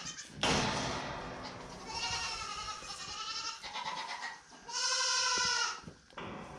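Goats bleating: several drawn-out, wavering bleats, the loudest a little past the middle. A burst of noise comes about half a second in.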